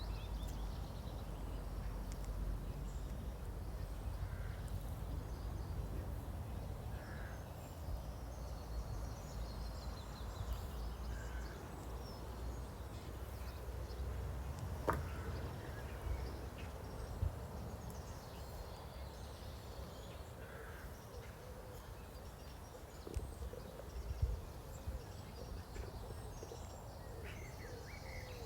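Outdoor nature ambience: a steady low rumble with birds calling now and then, and a single sharp click about halfway through.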